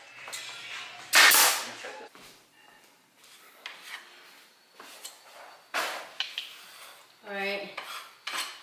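A pneumatic nail gun fires once about a second in: a single sharp crack with a short ring-out as it drives a nail into a shiplap board. After it come faint light clicks and scrapes, and a brief voice near the end.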